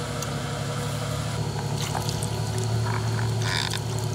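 Off-road vehicle's engine idling with a steady low rumble, with a few short higher sounds about two and three and a half seconds in.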